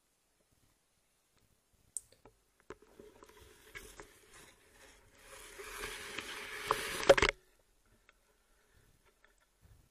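Water sloshing with scattered knocks and scrapes, swelling over a couple of seconds to one loud knock and then cutting off abruptly.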